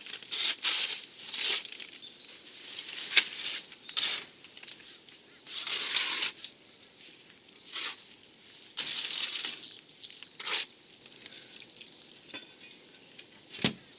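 A mortar hoe scraping and swishing through a sand and cement mix in a mortar box, in irregular strokes about a second apart, thinning out near the end.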